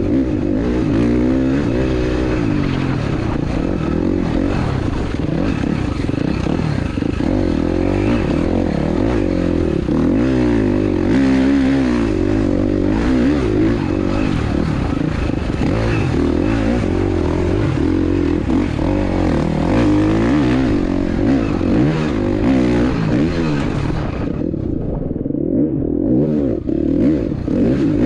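KTM off-road motorcycle engine revving up and down continuously under race throttle, over a steady rush of noise. About four seconds from the end the sound briefly goes muffled, losing its upper hiss.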